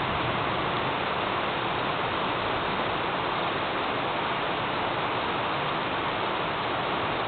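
Thunderstorm rain falling steadily: an even hiss with no thunderclap.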